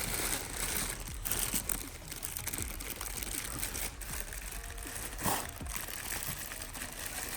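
Plastic packaging crinkling and rustling as it is handled and pulled open.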